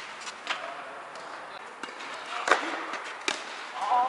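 Tennis ball struck by rackets during a doubles rally: three sharp pops, the loudest about two and a half seconds in, echoing in a large indoor hall.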